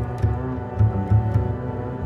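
Background music with a deep bass line stepping between low notes and sharp ticks of percussion over it.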